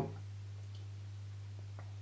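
Steady low hum of room tone, with two faint ticks about a second apart.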